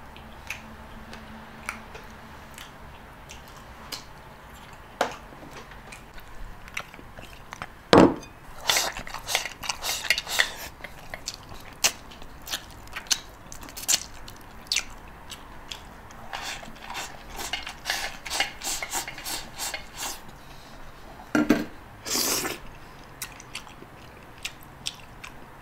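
Eating sounds at a table: scattered clicks and clinks of chopsticks and spoons on bowls, with chewing. One louder knock comes about eight seconds in.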